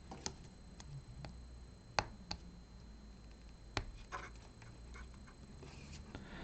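Scattered small clicks and taps, about half a dozen, from hands handling a DC power plug and a loose power jack, over a faint steady hum.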